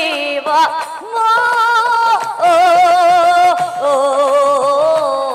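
Women singing an Assamese Nagara Naam devotional song, holding long melismatic notes with vibrato, with hand-clapping keeping time.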